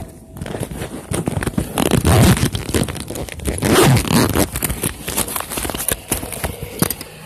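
Handling noise on a phone's microphone: fingers and fabric rubbing and scraping over it in a dense run of rustles and crackles, loudest about two seconds in and again around four seconds.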